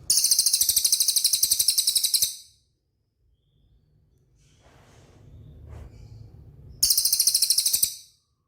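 Cililin songbird singing two very fast, even, high-pitched rattling trills: one of about two seconds at the start and a shorter one about seven seconds in.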